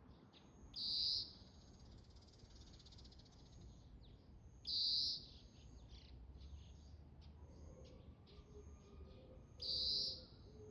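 Oriental greenfinch calling: three loud, high calls of about half a second each, some four seconds apart, with fainter short chirps between.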